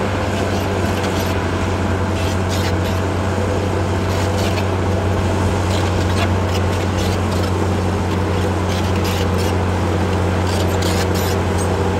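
Caterpillar D8R bulldozer's diesel engine running steadily, with scattered short clicks and clanks over its even low drone.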